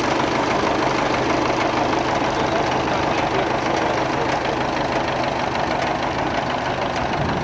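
Tractor engine running steadily under load as it pulls a PTO-driven bed-forming machine, the implement's tines, shares and forming roller working through the soil.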